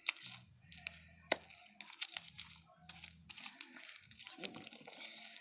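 Homemade glue slime being kneaded and pulled by hand, giving irregular sticky clicks and crackles, with one sharper snap about a second in.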